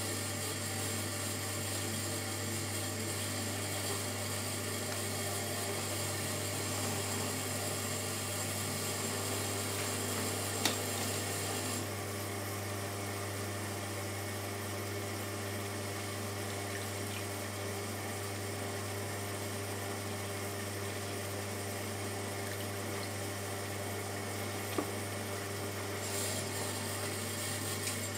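Shimpo RK10 electric potter's wheel running steadily with a hum while wet hands smooth the spinning stoneware bowl; the higher hiss drops off about twelve seconds in and comes back near the end. Two brief clicks.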